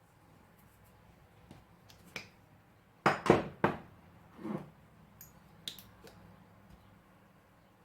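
Kitchen utensils clinking and knocking against cookware: a few sharp clicks, three loud ones in quick succession about three seconds in, then a softer scrape and a couple of light clicks. This is typical of a spoon being tapped and scraped on a pot or container while salt and spices are added to rice.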